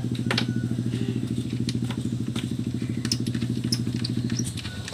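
Small boat engine running steadily with an even pulsing beat, then dropping in speed and level near the end.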